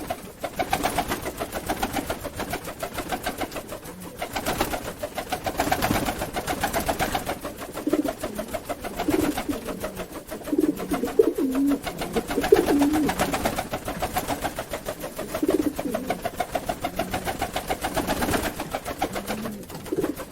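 Pigeons beating their wings in long bouts of rapid flaps, with low coos now and then.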